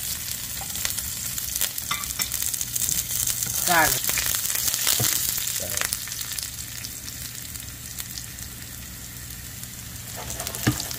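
Cumin seeds, curry leaves and garlic sizzling and crackling in hot oil in a skillet, spices being tempered for dal. The sizzle is strongest in the first few seconds and dies down over the second half.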